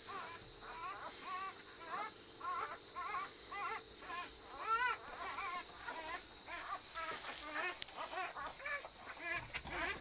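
Newborn Siberian husky puppy squeaking: a continuous run of short, high, arching cries, two to three a second, loudest around the middle.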